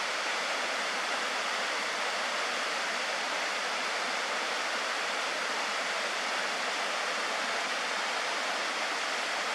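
Creek waterfall, about 25 feet high, running as a steady, even rush of falling water with little low rumble.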